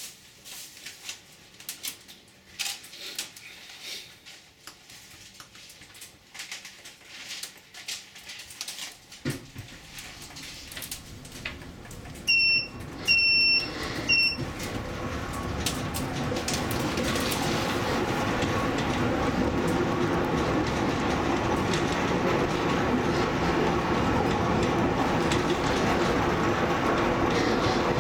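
Zecca–Righi funicular car setting off from a stop: scattered light clicks, then three short electronic beeps a little before halfway, followed by the car's running noise on its rails, building up and then holding steady.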